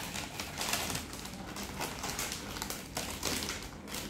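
Eating sounds close to the microphone: chewing, with irregular small clicks and rustles from handling food and utensils.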